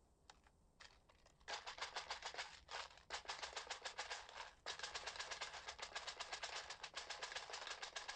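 A rapid run of light clicks and rattles, many a second with short breaks, starting about a second and a half in: small trinkets and coins being handled and counted.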